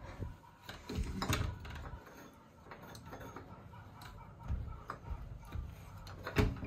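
A few scattered light knocks and mechanical clicks, loudest about a second in and again near the end.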